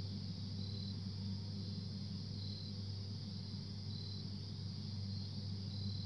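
A steady, unexplained low humming noise, with crickets chirping over it: a continuous high buzz and short high chirps about every second and a half.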